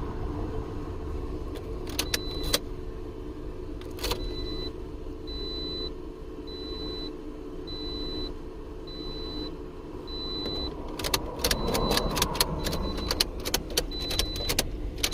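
A run of short, high electronic beeps, about one and a half a second, sounding while a new Toyota key is programmed to the car, over a steady low hum. Sharp clicks and rattling of keys, a few early on and many in the last few seconds.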